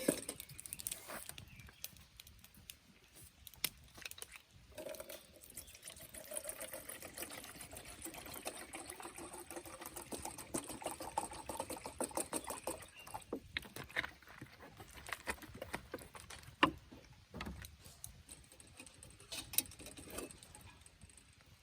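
Liquid poured into a container for several seconds, with scattered clinks and knocks around it.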